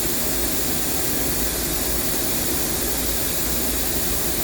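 Steady hiss and hum of a running Tsugami B0326 II CNC Swiss lathe and its ancillary equipment, unchanging throughout.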